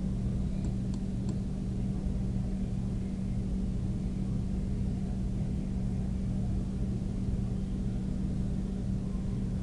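Steady low hum with a faint hiss behind it, the background noise of the recording setup, with two faint clicks about a second in.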